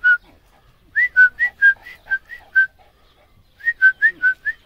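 A person making short, high chirps with the lips to call a dog over, in quick runs of about four or five a second, with a pause of about a second near the middle.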